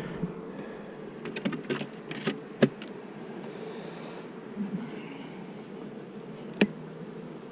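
Honeybees buzzing in a steady hum from an opened hive. There is a cluster of sharp clicks and knocks between about one and three seconds in, and another single knock near the end.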